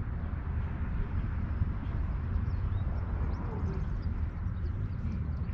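2007 Chevrolet Silverado's 5.3-litre V8 idling steadily with a misfire in cylinder number 3.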